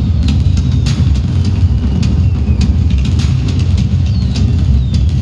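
Fireworks sound effects from a projection-mapping show's soundtrack: a heavy, continuous deep rumble with many sharp crackles and a couple of short falling whistles, about two and four seconds in.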